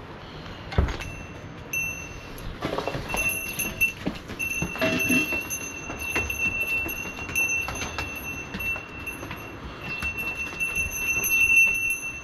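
A small metal bell ringing over and over on one high note, struck irregularly many times. A dull thud about a second in, and rustling around three and five seconds in.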